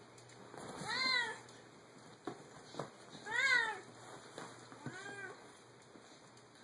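Domestic cat meowing three times, short meows that rise and fall in pitch, the second the loudest and the last fainter.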